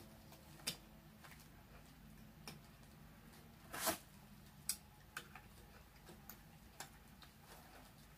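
Faint, scattered clicks and taps of a microphone and its spider shock mount on a boom-arm stand being handled as the microphone is fitted into the mount, with one louder, longer scrape about four seconds in.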